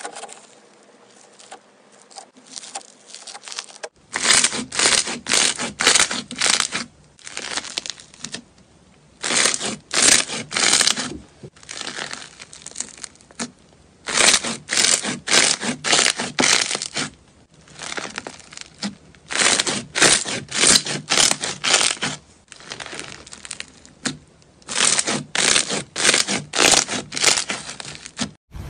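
Crunchy, bead-textured slime crackling and crunching as a hand presses and squeezes it, in runs of quick presses about two a second with short pauses between runs. The first few seconds are quieter, and the pressing starts about four seconds in.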